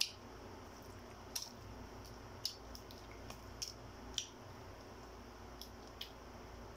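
Balut eggshell being picked off with fingers: about ten small, sharp crackles at irregular intervals.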